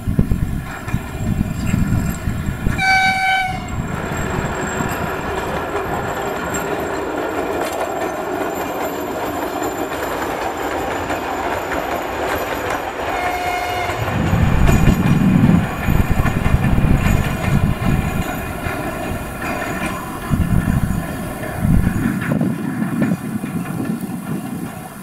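2M62 two-section diesel freight locomotive passing, its two-stroke 14D40 diesel engines running loudly over the rolling of its wheels on the rails. A horn sounds twice: a blast of about a second roughly three seconds in, and a shorter one about thirteen seconds in. Heavy low rumble comes in bouts in the second half.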